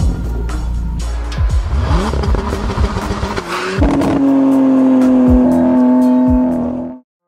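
Car engine revving, with the pitch sweeping up and down, mixed with music. From about four seconds in a loud steady held tone takes over, and the sound cuts off suddenly near the end.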